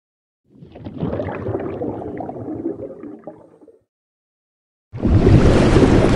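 Edited creature sound effects voicing a Liopleurodon: a rough, rumbling call of about three seconds, then after a second's gap a louder, fuller call beginning near the end.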